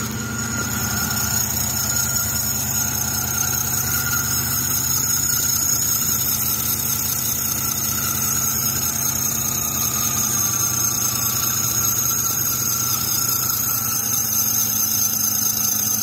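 Serpentine belt drive on a 2006 Chrysler 300 squealing steadily over the idling engine on a cold start, a high-pitched squeal that holds the same pitch throughout. The mechanic puts it down to dried-up bearings in the idler pulley or the tensioner pulley.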